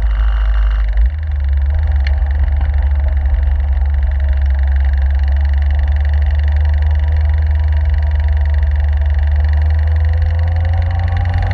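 Caterham 7's engine running under way, heard from the open cockpit over wind and road noise. Its note dips briefly about a second in, with a shift in the low drone that fits a gear change, then rises near the end as the car accelerates.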